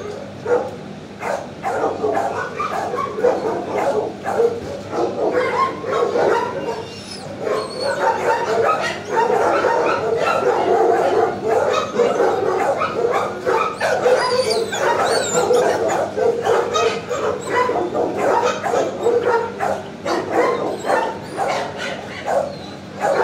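Many dogs in a shelter kennel barking over one another in a constant din, which grows denser after the first few seconds.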